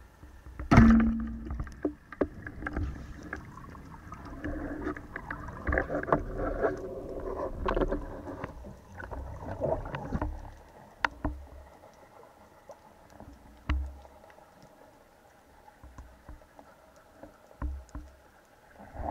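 Underwater, an LG Revolution 102 oleopneumatic speargun fires about a second in: a sharp crack followed by a short steady hum. Irregular rustling, scraping and clicks through the water follow as the shaft's line and the struck little tunny are worked in.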